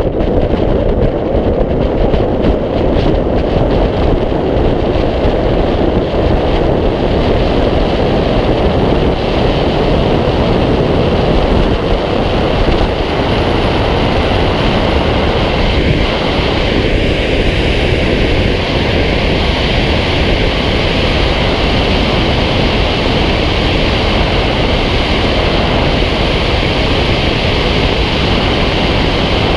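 Steady, loud wind rushing over the microphone of a wing-mounted camera on a Fox glider as it accelerates down the runway and lifts off.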